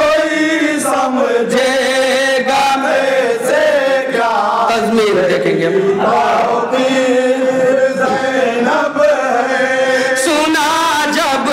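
Men's voices chanting a manqabat, a devotional Urdu poem, in a slow melodic recitation with long held notes.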